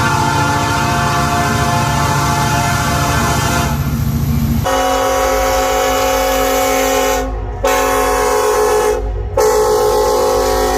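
Locomotive air horns: one horn sounds a long, steady chord, then about four and a half seconds in there is an abrupt switch to a different horn with a different chord, which breaks off briefly twice.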